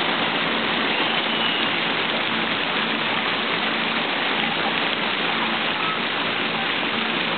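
Water showering down from a water-play structure onto the slides and pool, a steady rain-like hiss.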